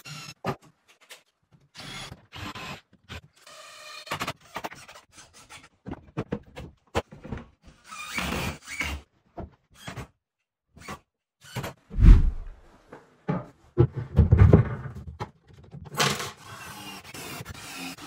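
Cordless drill-driver driving screws into melamine-faced board in short runs that cut off abruptly, mixed with the rubbing and knocking of panels being handled. Two heavy thumps about two-thirds of the way through are the loudest sounds.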